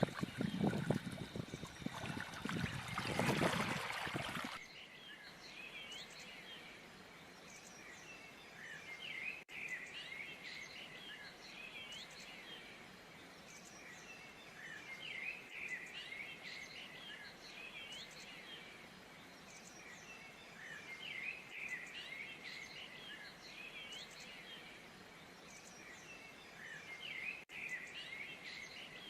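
A loud rushing, rumbling noise for the first few seconds, which cuts off suddenly. Then small birds chirp and twitter in many short rising and falling calls over a faint hiss.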